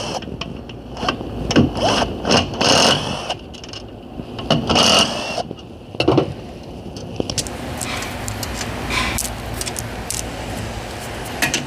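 A power wrench running in several short bursts while bolts are spun out of a CVT transmission case, followed by a steadier stretch of tool and metal handling.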